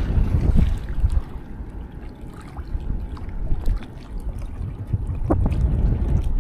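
Wind buffeting the microphone in uneven gusts, a low rumble that is strongest in the first second or so and again about five seconds in.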